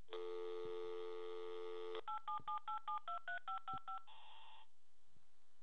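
Telephone line dial tone for about two seconds, then about eleven quick touch-tone (DTMF) beeps as a toll-free number is dialled, followed by a brief hiss on the line as the call connects.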